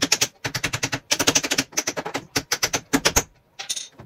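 Small wooden mallet tapping a connector into the black plastic panels of a DIY cube shoe rack: rapid runs of sharp taps, many a second, in several bursts that stop a little after three seconds in. A brief rustle of plastic follows near the end.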